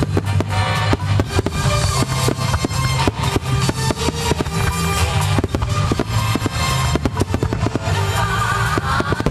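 Fireworks going off in quick succession, many sharp bangs from bursting shells and rising comets, over loud music with a heavy drum beat.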